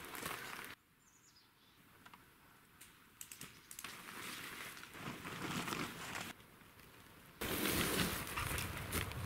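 Outdoor ambient noise in several abruptly cut segments, with scattered clicks and a faint high chirp about a second in.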